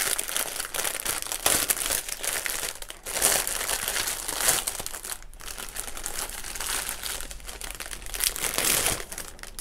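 Thin clear plastic bag crinkling unevenly as hands open it and pull out a rolled strip of plastic-packed diamond-painting drills.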